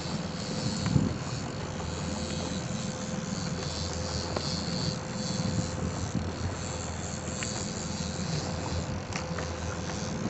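Fishing boat's motor running with a steady drone and hum. There is a sharp knock about a second in.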